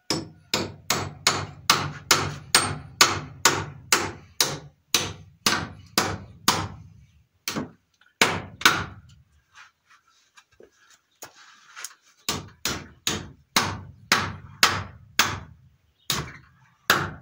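A hammer driving a nail into the timber of a wooden barn stall, struck about three times a second in a long run. The blows thin out and pause for a couple of seconds midway, then start again. The nail is not going in.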